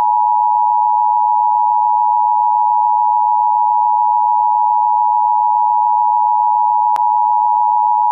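Emergency Broadcast System attention signal: a loud, steady two-tone alert that holds unbroken, with a brief click about seven seconds in.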